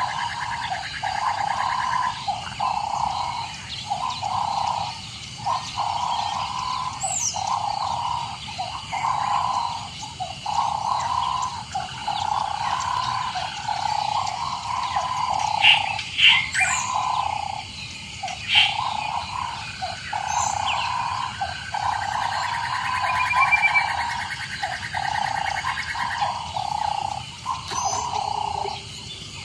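Dense chorus of calling animals: a steady pulsing drone that breaks off in short gaps roughly every second, with a few sharp bird chirps over it.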